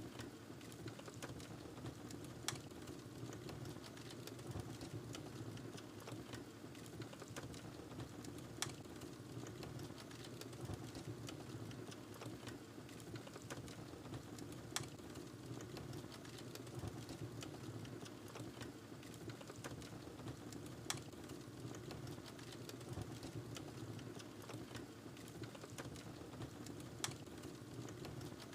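Wood fire burning in a fireplace: a steady low rustle of flames under a constant scatter of small crackles. A sharper pop stands out about every six seconds, five times in all.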